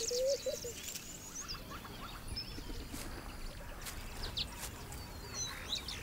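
Wild birds calling: scattered high chirps and short whistled notes, sparse through the middle and growing busier near the end, with a brief low warbling call right at the start over a faint outdoor hiss.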